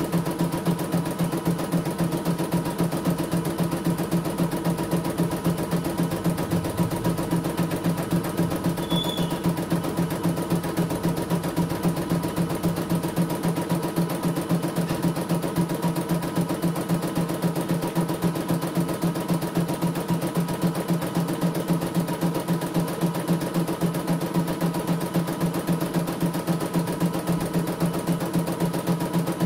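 CNY E900 computerized embroidery machine stitching a design on a test run, its needle working in a rapid, even rhythm over a steady motor hum.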